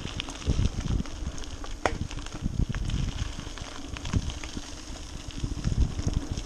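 Mountain bike rolling along a gravel trail: tyres crunching over the loose surface with scattered clicks and rattles. A gusty low rumble of wind buffets the microphone.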